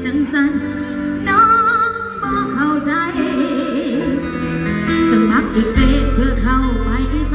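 A song with a singing voice, its melody wavering with vibrato over instrumental accompaniment. A deep bass comes in about six seconds in.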